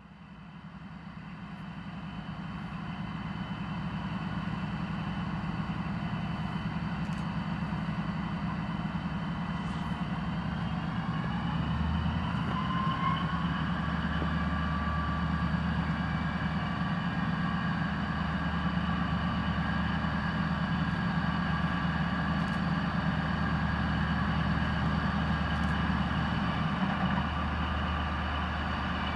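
Deutsche Reichsbahn V100 (class 201/202) diesel-hydraulic locomotive running under power at the head of a freight train, its engine growing louder as it approaches. About twelve seconds in it revs up with a rising whine, then runs on steadily.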